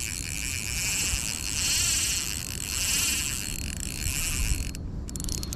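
Steady, high-pitched insect chorus droning with a slight pulse, dropping out for a moment near the end, over a low rumble from the microphone being covered and rubbed.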